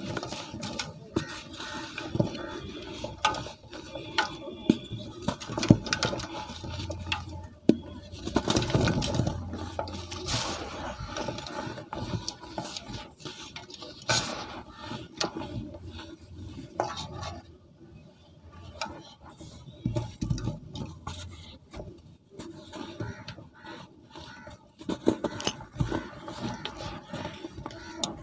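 Hands crumbling and rubbing dry cement powder and crumbly cement chunks in a bowl, making irregular gritty crunches, scrapes and small clicks. The handling is busiest around the middle.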